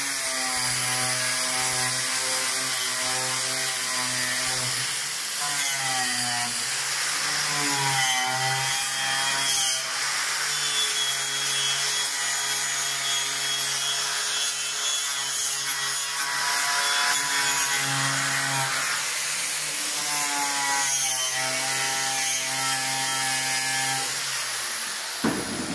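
Angle grinder with a wire cup brush running continuously against a rusty steel van sill, scraping off rust and old underseal. Its motor whine dips in pitch and recovers several times as it bites, and it stops shortly before the end.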